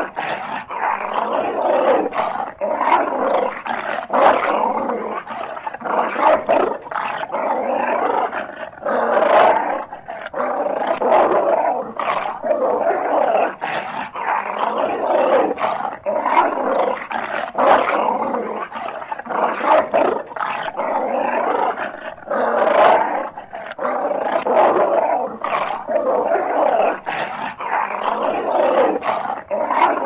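Dogs growling and barking without pause, sharp barks and snaps breaking through a continuous snarl.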